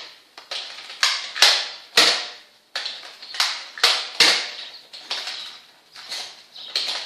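Nerf foam blasters fired over and over, a string of about a dozen sharp spring-powered clacks at uneven intervals, roughly one or two a second.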